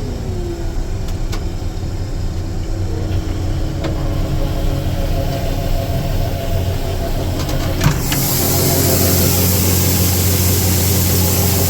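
Combine harvester engine running steadily. About two-thirds of the way through there is a sharp click, and a loud hissing rush joins the engine and carries on to the end.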